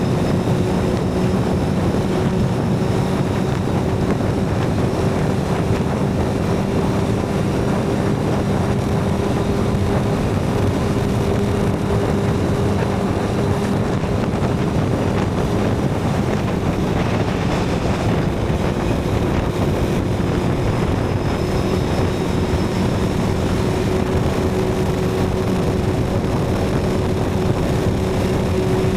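Suzuki GSX-R750 inline-four with a Yoshimura TRS exhaust running at a steady cruise, its engine note holding nearly constant, with wind rushing over the microphone.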